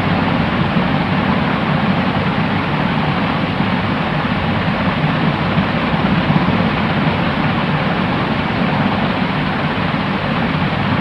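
Steady white noise for sleep: an even, unchanging rushing hiss with a fuller low rumble, no breaks or changes.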